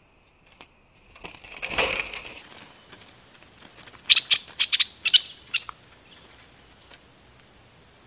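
A bulbul flapping its wings at a wire trap cage in a short flurry, then a quick run of sharp chirps about two seconds later.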